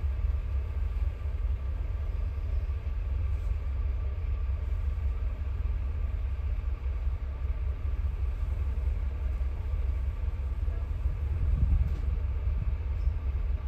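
City bus running, heard from inside the cabin: a steady low engine and road rumble, swelling briefly louder near the end.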